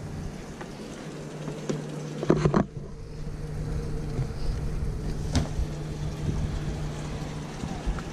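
A steady low mechanical hum with wind noise on the microphone, broken by a cluster of knocks a little over two seconds in and a single sharp click about five seconds in.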